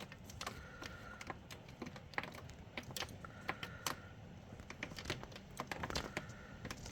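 Hailstones striking hard surfaces: a dense, irregular clatter of sharp ticks and clicks.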